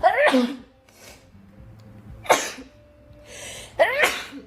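A woman sneezing three times, roughly two seconds apart; the first and last sneezes are voiced, the middle one short and sharp.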